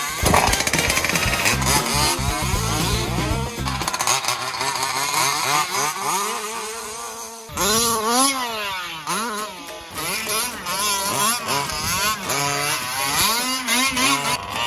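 Two-stroke petrol engine of a gas-powered 1/5-scale RC truck revving, its pitch rising and falling again and again. The sound changes abruptly about halfway through.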